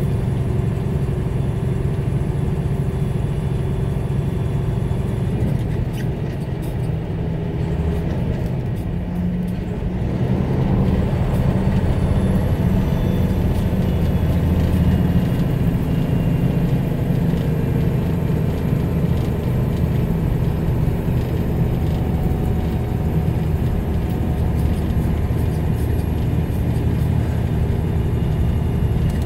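A vehicle's engine and road noise, heard from inside the cab while driving, as a steady low rumble that gets louder about a third of the way in.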